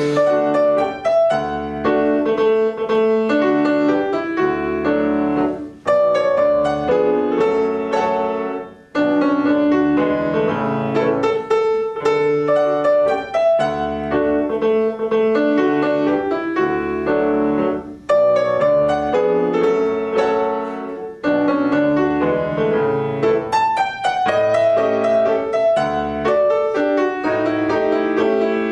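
Petrof grand piano played four hands by two players: a classical duet piece in phrases, with a few short breaks between them.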